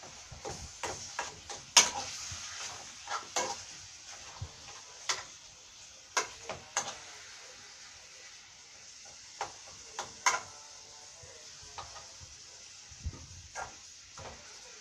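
Irregular clicks and knocks of a utensil against a pot or pan as a ragù of minced meat cooks, about a dozen strikes with the sharpest about two seconds in, over a faint steady hiss.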